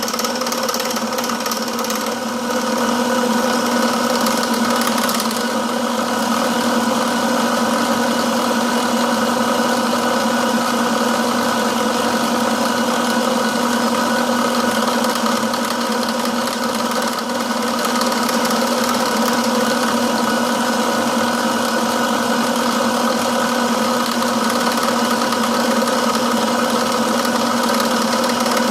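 Milling machine running steadily, its tool bit cutting the workpiece, a steady hum with a hiss of cutting noise above it. It gets somewhat louder about two and a half seconds in.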